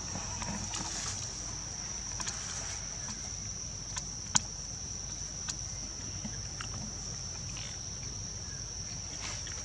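Steady high-pitched drone of forest insects, with scattered small clicks and one sharp click about four seconds in.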